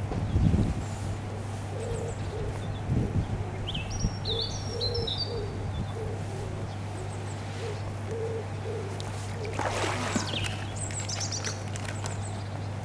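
A pigeon cooing, a run of low, evenly spaced hoots, while small birds chirp high above it. A steady low hum runs underneath, with a low thump about half a second in and a short burst of rustling noise about ten seconds in.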